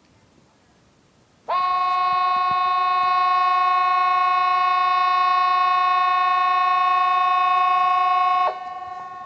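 Hesa Fredrik, the Swedish outdoor public warning siren, sounding one steady, harsh chord-like tone. It starts abruptly about one and a half seconds in, holds for about seven seconds, then cuts off, leaving a fainter lingering tone. Seven seconds is the length of one blast of its warning signal.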